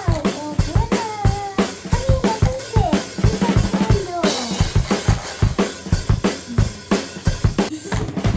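Drum kit playing a fast, steady beat of kick and snare hits, with a high gliding voice over the first few seconds.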